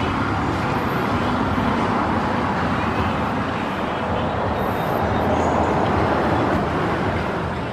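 Steady background noise with a low rumble underneath and no distinct events.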